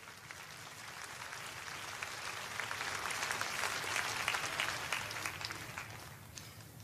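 A congregation applauding, the clapping swelling to a peak about midway and dying away near the end.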